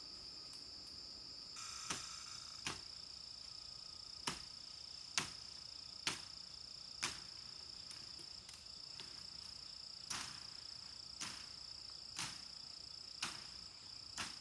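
Chopping with a blade into brush and wood on a hillside: about eleven sharp strikes, roughly one a second, with a short pause midway. A steady high drone of insects runs underneath.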